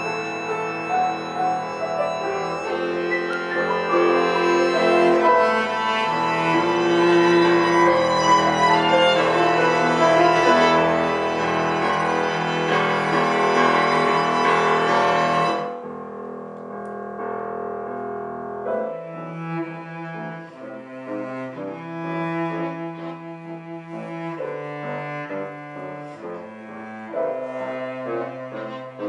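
Piano trio of violin, cello and piano playing classical chamber music. The full, loud ensemble sound breaks off suddenly about halfway through, giving way to a quieter passage of long, held low notes.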